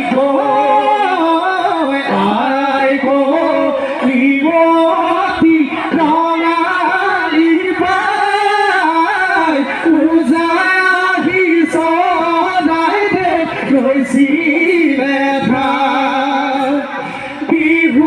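An Assamese Husori troupe singing a Bihu song in chorus, a melody of long, wavering held notes.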